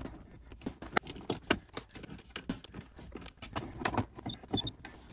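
Irregular small clicks and taps, a few a second, from hands handling a 5 mm hex bit and small metal fasteners while refitting the door sill trim.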